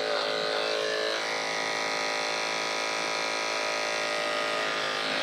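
Corded electric dog grooming clippers running with a steady buzz as they trim the fur around a dog's paw pads.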